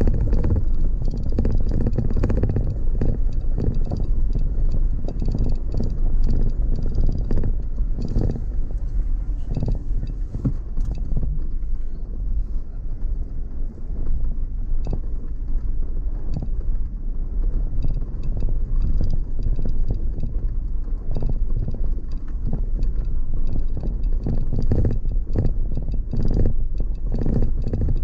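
Off-road vehicle driving along a rough dirt track: a steady low rumble of engine and tyres, broken by frequent knocks and rattles as it goes over the bumps.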